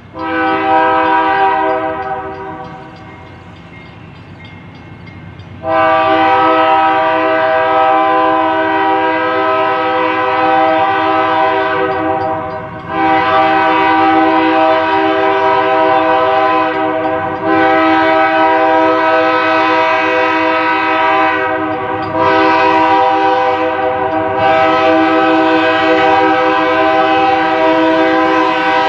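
Diesel locomotive's multi-chime air horn: a short blast, then after a few seconds a string of long blasts with brief breaks between them, over the low rumble of the moving train.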